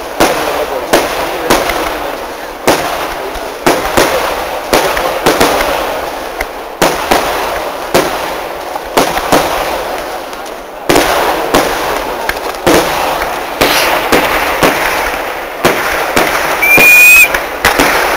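Kerala temple fireworks (vedikettu): a long run of loud firecracker bangs going off one after another, about one or two a second, each fading with an echo. The bangs come thicker and loudest near the end, with a brief high whistle among them.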